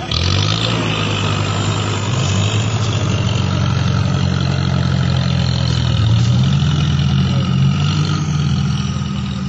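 Engine of an off-road 4x4 running close by under throttle. It gets louder suddenly at the start, rises in pitch a few seconds in, and settles back near the end.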